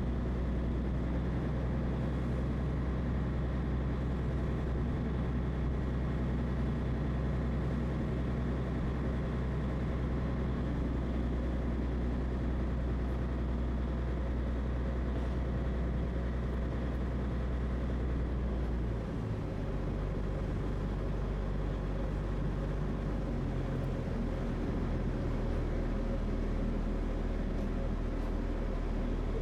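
A small ferry's engine running steadily with a deep hum; about two-thirds of the way through its note shifts lower and stays there.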